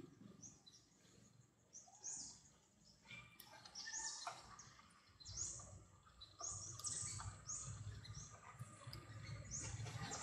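Faint birds chirping: short high calls, one or two a second, starting about three seconds in, over a low rumble that comes up in the second half.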